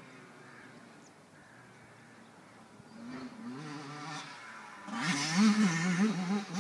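Dirt bike engine revving on the track, faint at first and getting louder from about three seconds in, its pitch rising and falling quickly as the throttle is worked; loudest near the end.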